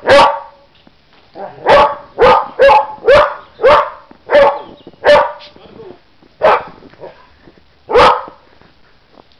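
Dog barking, about ten loud, sharp barks: a quick run of roughly two a second over the first five seconds, then two more spaced out.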